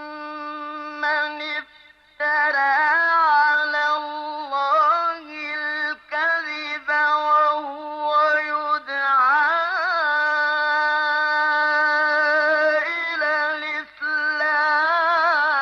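A solo male voice reciting the Quran in a slow, melodic tajweed style. He sings long held, ornamented notes with a wavering embellishment near the middle and brief pauses for breath.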